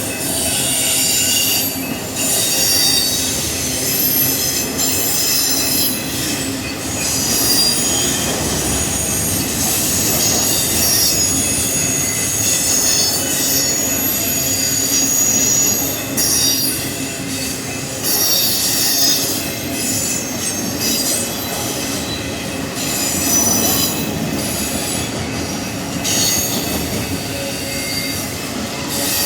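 Freight train of auto rack cars rolling past, steel wheels squealing against the rail in high, shrill tones that come and go over a steady rumble.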